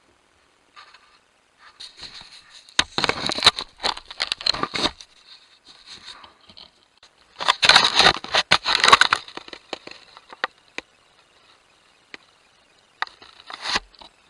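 A black bear rubbing against a trail camera, its fur scraping and crackling over the housing and microphone. The sound comes in two long spells of scratching and a short one near the end.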